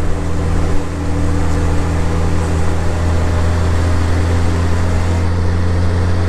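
2016 Honda Gold Wing's flat-six engine running at a steady cruise, a constant low hum that neither rises nor falls, with wind and road noise rushing past.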